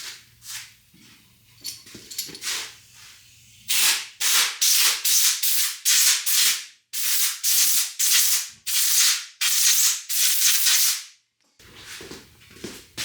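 Rhythmic scrubbing strokes, about two a second, loud from about four seconds in until about eleven seconds, with a short pause in the middle; fainter scraping sounds before and after.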